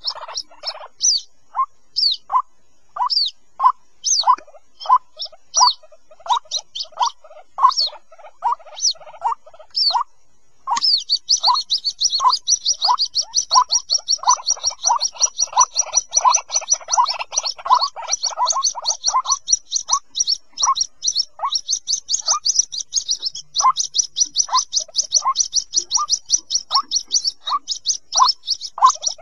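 White-breasted waterhen chicks peeping, calling for their parent, as a lure recording. Short calls come about two a second. From about a third of the way in, a dense stream of high, rapid peeps joins them and keeps going.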